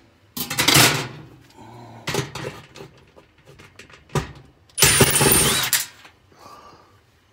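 Handling noise and clatter: several loud bursts of rubbing and knocking as the phone brushes against clothing and a cordless drill is handled against the oven's element screws. The longest, loudest burst comes about five seconds in.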